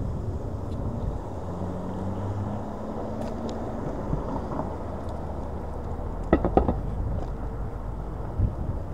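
Hiboy S2 Pro electric kick scooter riding along the street: a steady road-and-tyre rumble with wind on the microphone. A quick cluster of sharp knocks comes about six and a half seconds in, and a single thump near the end.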